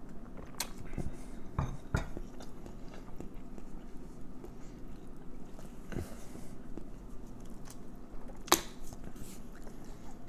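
Close mouth sounds of someone chewing fried Cornish hen, with a few sharp crisp crunches of the fried skin; the loudest crunch comes about eight and a half seconds in.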